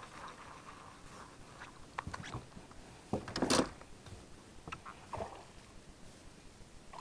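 A few sharp knocks, then about three seconds in a louder half-second scrape and rustle, then more knocks: a landing net being grabbed and handled in a bass boat while a hooked bass is brought in.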